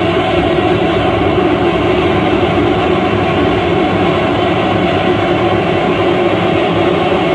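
Harsh noise wall performed live: a loud, dense, unchanging wall of distorted static, heaviest in the lower-middle range, with no rhythm, breaks or changes.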